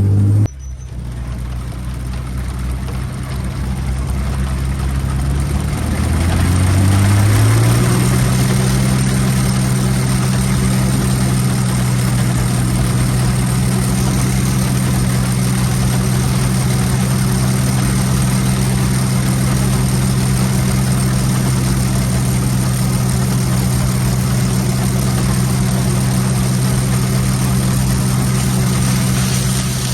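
John Deere 95 combine's engine running, rising in pitch between about six and eight seconds in and then holding steady at working speed.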